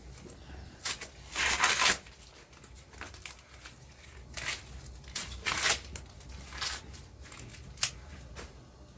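Several short bursts of rustling, crackling and scraping as sticks and maize cobs are handled and laid in place by hand for roasting over a wood fire.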